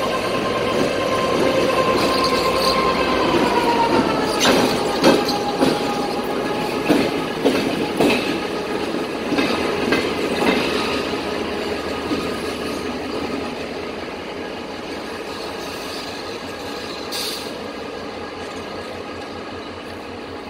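Diesel locomotive passing at low speed: a steady whine drops in pitch as it goes by about four seconds in. A string of sharp clacks from its wheels over rail joints follows, and the sound fades as it moves away.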